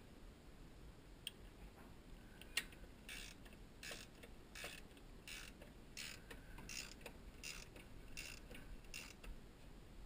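Ratchet wrench clicking faintly in short runs, about one every 0.7 seconds from about three seconds in, turning the oil filter canister on an oil burner's supply line.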